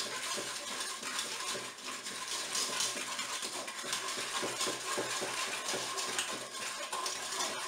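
Hand whisk stirring a thick mix of cocoa, cornstarch, sugar and eggs in the nonstick inner bowl of a Moulinex Cookeo multicooker: a quick, continuous run of scraping and tapping strokes against the bowl.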